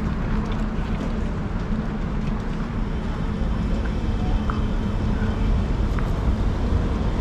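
Electric city tram at a stop: a steady low rumble and hum, with wind buffeting the microphone.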